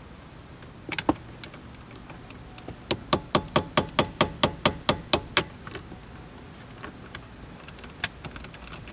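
A quick, even run of about a dozen sharp metal-on-metal taps, about five a second, on a punch set in a shear-head security bolt of the steering lock, knocking the bolt round to back it out. Two single knocks come about a second in, and one more near the end.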